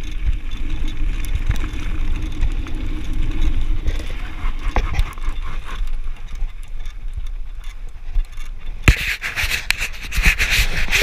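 Mountain bike rolling down a gravel trail: tyres crunching over loose stones with a low rumble and small rattles from the bike. About 9 s in a harsher scraping hiss sets in as the tyres slide over the gravel yard.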